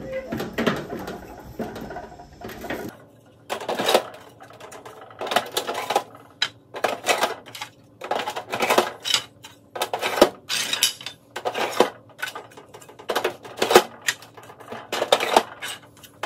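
Small clear plastic drawers slid one after another into the plastic rails of a metal parts-bin cabinet, each giving a short plastic clatter, roughly one a second. In the first few seconds there is duller handling as a plastic drawer rail is fitted into the cabinet.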